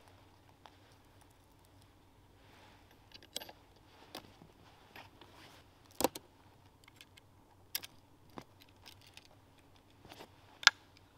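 Scattered small clicks and taps of a wooden-framed bushcraft bow saw being assembled, the steel blade knocking against the wooden frame sticks as it is fitted. The sharpest clicks come about six seconds in and just before the end.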